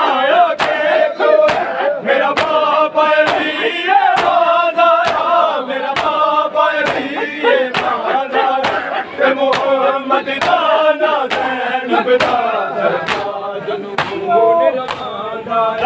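Matam: many men slapping their bare chests with open hands in unison, about two strikes a second. Over the strikes, a crowd of male voices chants the noha refrain.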